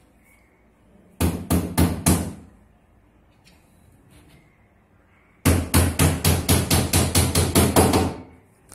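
Hammer blows on an engineered-wood box bed frame during assembly. Four quick strikes come about a second in, then after a pause a fast run of about a dozen strikes, roughly five a second.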